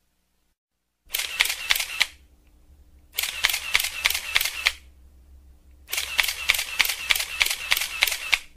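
Camera shutter firing in continuous-shooting bursts of about five frames a second. There are three bursts, the last and longest near the end.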